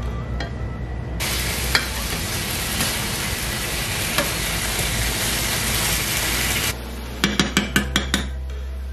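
Chicken breasts sizzling in oil in a nonstick frying pan as they are turned with metal tongs; the sizzle starts about a second in and cuts off abruptly near seven seconds. Then a quick run of sharp clinks, about seven in a second, from a metal spoon against a pan.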